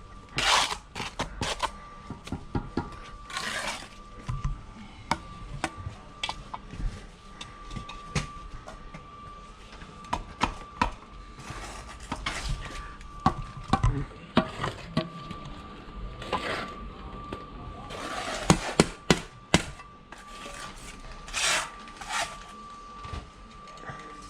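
Steel bricklaying trowel working mortar on concrete blocks: irregular sharp metal clinks and taps with short scrapes, several louder scrapes about 18 to 19 seconds in.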